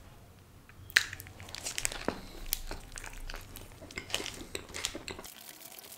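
Paper wrapper crinkling around a paneer tikka wrap, and biting and chewing into the wrap, heard as a sharp click about a second in followed by small irregular crackles.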